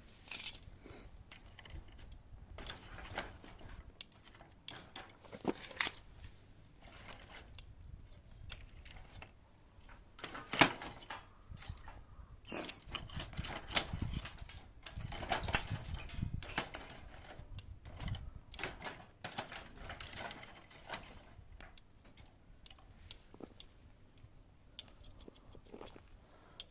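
Freshly lit wood fire crackling, with irregular sharp pops and snaps, the loudest about ten seconds in.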